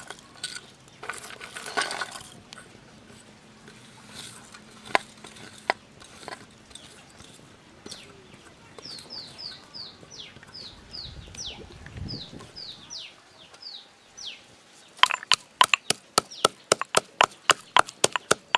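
Ginger, garlic and peppercorns dropped into a stone mortar with scattered clicks and rustles, then, about fifteen seconds in, a pestle pounding them in the mortar at about four sharp knocks a second. In the middle, a bird's short falling chirps, about a dozen.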